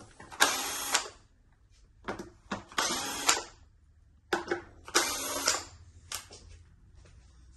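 Cordless drill-driver running in three short bursts of about half a second each, backing out screws from an electric scooter's deck, with a few brief blips of the motor between them.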